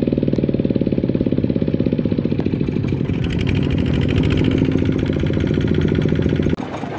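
Kubota ZT155 single-cylinder diesel of a two-wheel walking tractor running hard with a fast, even chugging beat as the tractor is driven to get itself and its loaded trailer out of deep mud. The sound drops abruptly near the end.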